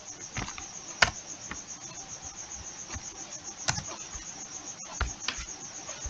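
A few scattered computer keyboard key presses, single sharp clicks a second or more apart, over a steady high pulsing trill in the background.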